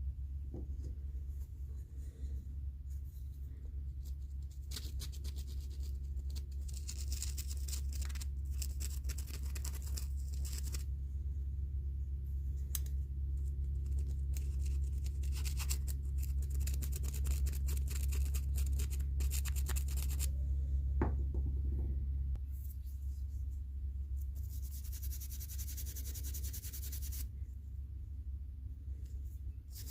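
Dirty adjustable-wrench parts being scrubbed and scraped clean: rapid scratchy strokes in runs of several seconds, with pauses between, over a steady low hum.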